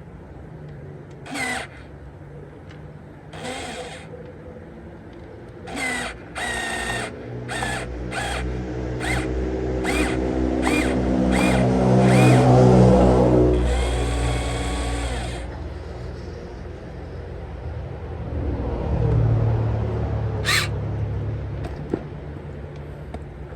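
Radio-controlled model crawler excavator's electric hydraulic pump and motors whirring, the whine swelling to its loudest about halfway through and again near the end as the machine works. Short sharp clicks or knocks come and go over it, mostly in the first half.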